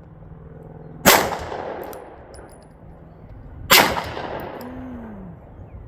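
Two pistol shots from an FN 509, about two and a half seconds apart, each with a long echoing tail, and a third shot right at the end.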